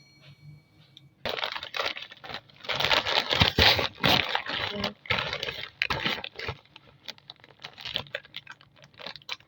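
Plastic packaging being handled and torn open by hand, crinkling and crackling. It starts about a second in, is densest and loudest two to four seconds in, then thins to scattered crinkles.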